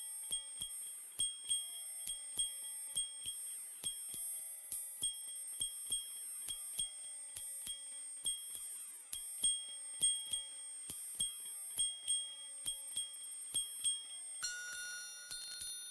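Ultra-high-pitched electronic tinnitus-relief tone held loud and steady, dotted with a quick run of short, evenly spaced high pings. About fourteen seconds in, the tone steps up higher and the pings change to a new pattern.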